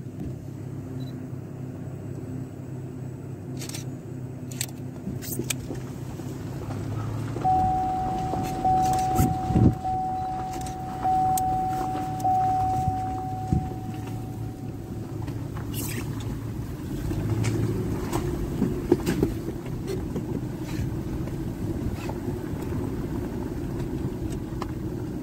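A vehicle driving slowly on a rural road, heard from inside: steady engine and road hum with scattered knocks and rattles. A thin steady high tone sounds for several seconds midway.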